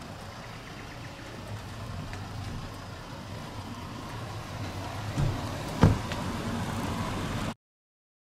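A motor vehicle's engine running steadily in a car park, a low even hum, with two thumps about five and six seconds in, the second the loudest. The sound cuts off abruptly near the end.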